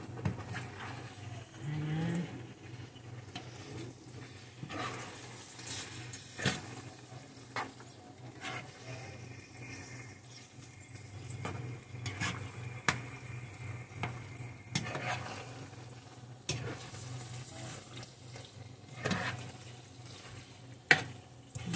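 Spaghetti being stirred and tossed in a thick cream sauce in a wide pan: wet squelching with scattered clicks of the utensil against the pan, over a steady low hum.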